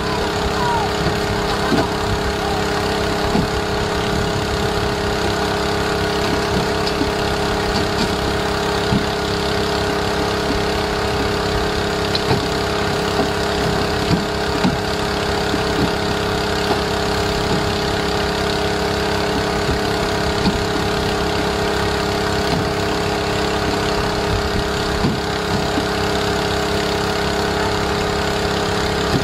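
Fishing boat's engine running at a steady drone, with scattered short knocks and slaps as hooked tuna are flung onto the deck.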